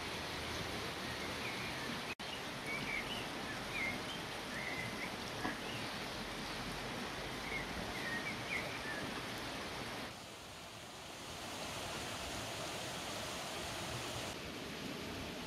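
Hands squeezing and kneading a moist bulgur and spice mixture in an enamel bowl, giving a steady, gritty squelching, with small birds chirping during the first half.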